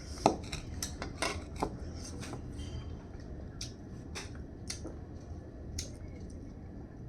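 Eating sounds at a meal: a plate and utensils clinking and knocking in scattered clicks, the sharpest about a third of a second in, with lighter clicks through the rest.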